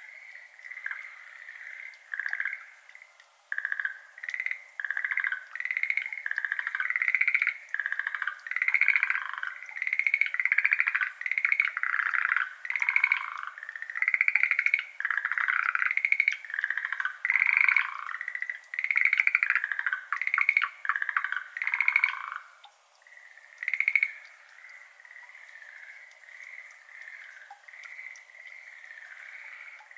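A chorus of Schlegel's green tree frogs calling: short bursts of rapid pulsed croaks, many overlapping. The calling builds a couple of seconds in and dies away a little after twenty seconds, leaving only fainter calling.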